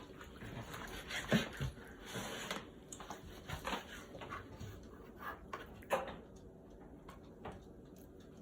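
Scattered light knocks and clicks of kitchen food preparation, with a short squeak or whine about six seconds in.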